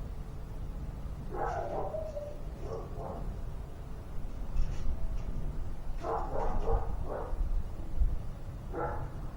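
A dog barking repeatedly in short separate barks, a few of them bunched together near the middle.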